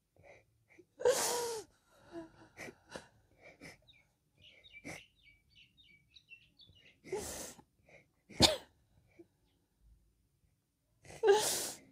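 A child crying in sobs with gasping breaths. Loud outbursts come about a second in, again around seven to eight seconds in, and near the end, with quieter catches of breath between them.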